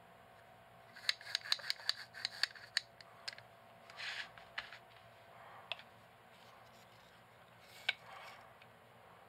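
Norita 66 extension tube being turned and fitted together by hand: a quick run of about ten sharp clicks from the mount ring, then rubbing of the tube parts and two more single clicks.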